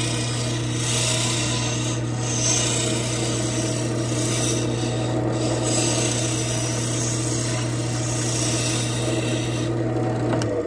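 Jet wood lathe running with a steady motor hum while a hand-held turning tool cuts the spinning bocote duck call barrel, a rough scraping hiss that swells and fades as the tool is worked along the wood. The hum stops near the end as the lathe is switched off.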